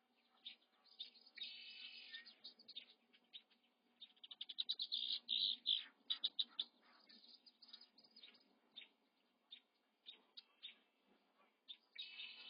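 Birds chirping: many short, high-pitched chirps in quick clusters, busiest a few seconds in and again near the end.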